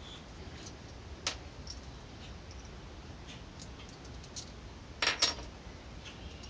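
Small metal parts clinking as vise mounting bolts and washers are handled: a light click about a second in, then two sharper metallic clinks with a brief ring about five seconds in.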